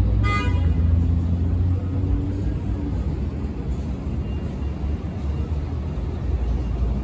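Subway train running with a steady low rumble, and a brief high-pitched squeal just after the start.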